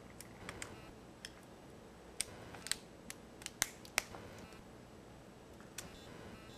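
Irregular sharp clicks and snaps of a utility knife blade cutting and working through the wire mesh of a metal dish strainer. The loudest clicks come about two to four seconds in.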